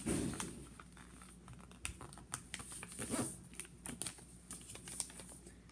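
A sheet of A4 paper being folded and creased by hand into a paper aeroplane: scattered soft crinkles and small taps of paper handling.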